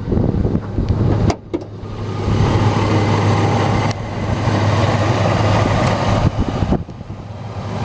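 Ford F-150's 5.4 V8 engine idling steadily, getting louder from about two seconds in.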